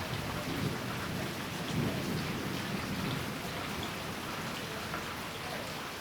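Steady heavy rain falling, with a low rumble of thunder that swells about two seconds in and dies away after the middle.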